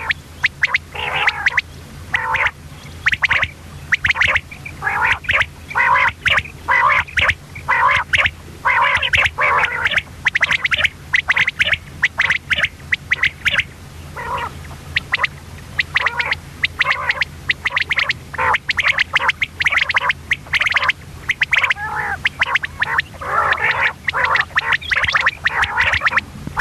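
Common quail calling: runs of short, harsh, gurgling notes repeated quickly and almost without pause, easing briefly about halfway through. A steady low hum runs underneath.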